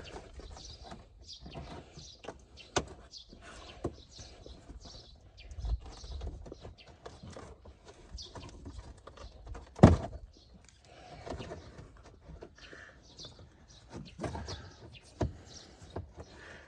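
Plastic push clips being pried out of a Renault Clio 3's plastic wheel arch liner with a clip-removal tool. Scattered scraping and rustling, with occasional sharp clicks, the loudest about ten seconds in.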